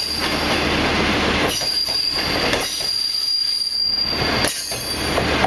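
China Railway 25K passenger coaches rolling past as the train pulls out, wheels running loudly on the rails with a thin high squeal that comes and goes.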